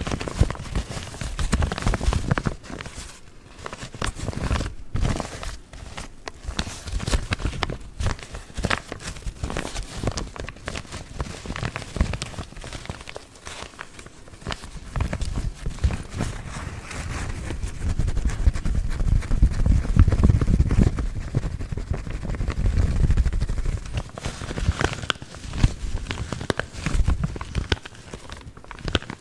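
Paper coffee filter bags crinkled, scratched and tapped close to the microphone: a dense, irregular run of rustles and taps with soft thumps.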